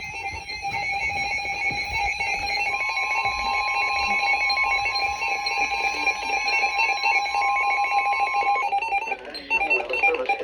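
Emergency Alert System alarm: a steady electronic tone held for about six seconds over a continuous buzzy, rapidly pulsing signal, which gives way near the end.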